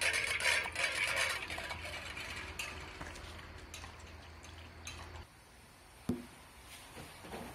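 Border collie eating from a metal bowl, the bowl clinking and scraping on a concrete floor. The clatter is densest at first and dies away by about halfway through, leaving a few scattered clicks.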